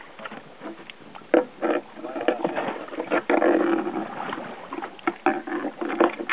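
Irregular knocks and clatter aboard a small fishing boat, with a low hum in the middle and again near the end.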